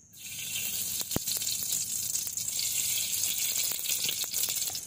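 Cooking oil poured into a hot wok, hissing and sizzling steadily as it hits the hot metal.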